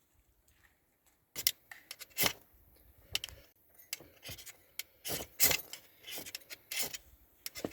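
Irregular series of sharp clicks and light metallic rattles, starting about a second and a half in.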